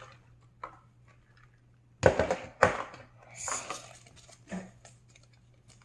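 Hands handling a plastic fidget cassette toy and its packaging: two sharp clicks or knocks about two seconds in, then softer rustling and small ticks.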